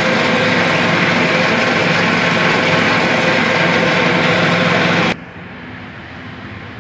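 Walk-in chiller condensing unit running, its newly replaced compressor and condenser fan giving a loud, steady whooshing hum. About five seconds in it drops abruptly to a much quieter steady hum.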